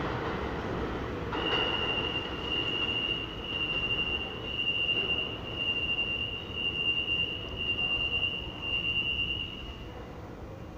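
New York City subway train pulling away down the tunnel, its wheels squealing in one steady high-pitched tone from about a second in until near the end, over the train's rumble, which fades as it goes.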